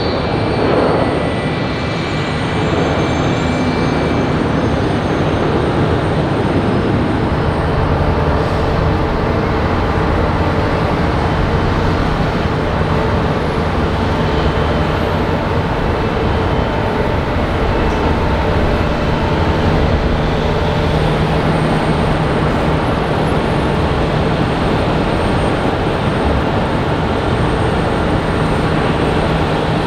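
Jet airliner's engines, a loud steady roar with a few faint tones, and a falling pitch in the first couple of seconds as the aircraft passes.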